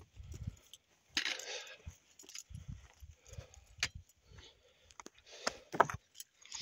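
Footsteps on loose, flat summit scree: irregular crunches and low thuds, with stones clinking and knocking against each other as they shift underfoot.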